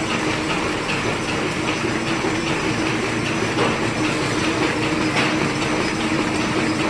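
Box folder-gluer machine running steadily, its belts and rubber pressure wheels carrying flat printed carton blanks through: a continuous mechanical clatter over a steady hum, with faint light ticking.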